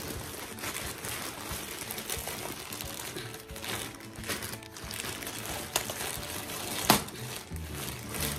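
Plastic mailer bag crinkling and rustling as it is handled and pulled open, with a sharp click about seven seconds in. Soft background music plays underneath.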